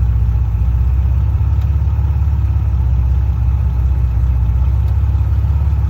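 TVR 280i's 2.8-litre V6 engine idling steadily, a loud low rumble.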